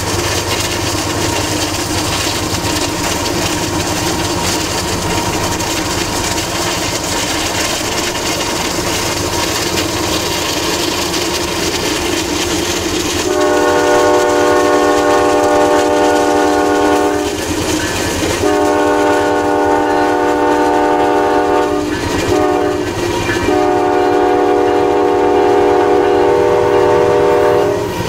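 Norfolk Southern GE Dash 9-40CW diesel locomotive running past with a steady rumble of engine and wheels on rail. About halfway through, its multi-chime air horn sounds in three long blasts with short breaks between them.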